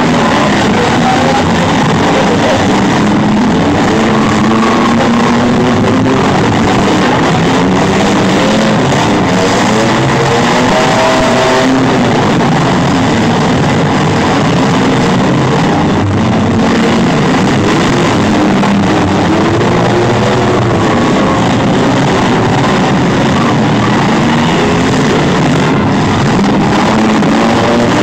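Demolition derby minivans, trucks and SUVs with their engines revving and running hard, the pitch rising and falling, mixed with loud rock music.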